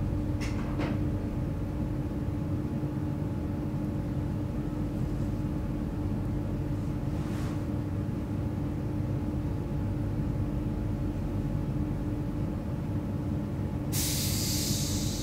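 Hamburg DT4 metro train standing at a platform, heard from inside the car: its onboard equipment runs with a steady hum and a constant tone, with two light clicks near the start and a loud hiss starting near the end.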